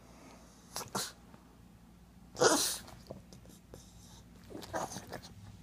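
A pug dog giving short, sneeze-like nasal snorts: a quick pair about a second in, the loudest around two and a half seconds in, and a weaker one near the end.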